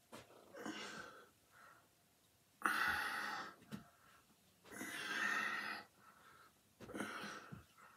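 A man breathing hard under strain during heavy dumbbell curls: four forceful exhales, each about a second long and roughly two seconds apart, the loudest a little under three seconds in.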